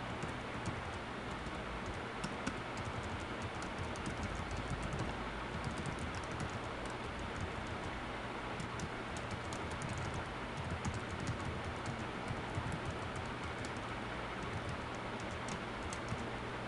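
Typing on a computer keyboard: irregular runs of quick key clicks over a steady hiss and low hum.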